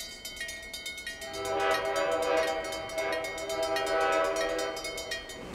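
A Korail electric locomotive's horn sounding as the train approaches the station: a long, slightly wavering horn note from about a second and a half in, over a fast, even ticking.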